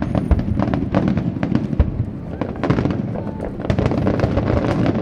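A rapid barrage of large aerial firework shells bursting: deep booms, two standing out in the first two seconds, over continuous sharp cracks and pops and a steady low rumble.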